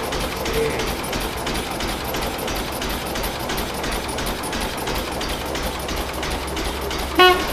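The engine of a 109-year-old car running at idle with a rapid, even clatter. Near the end, a short horn toot.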